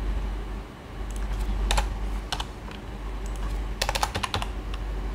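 Keys being typed on a computer keyboard: scattered single keystrokes, then a quick run of several about four seconds in.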